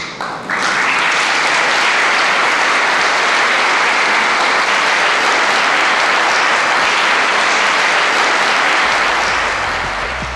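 Audience applauding: a steady round of clapping that starts about half a second in and eases off slightly near the end.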